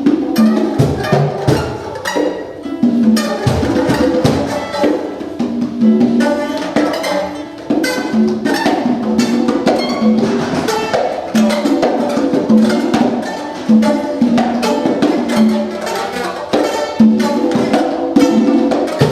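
Free-improvised live music: congas played in dense, quick strikes under a pitched instrument that keeps returning to one low note, with other notes above it.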